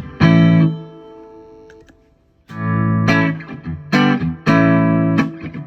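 Electric guitar chords played through a Boss SG-1 Slow Gear volume-swell pedal. The chords ring and die away, with a short pause about two seconds in and a chord that fades in softly after it. Played without bending or rubbing the strings, the slow-attack swell is not very pronounced.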